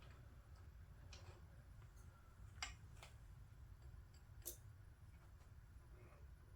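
Near silence broken by a few faint, sharp metallic clicks and taps, the clearest about halfway through: clamping hardware being handled and set on a milling machine table.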